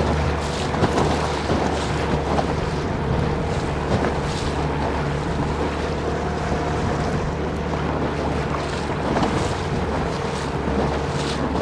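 Outboard motor of a small boat running steadily as the boat moves over choppy river water, with strong wind buffeting the microphone.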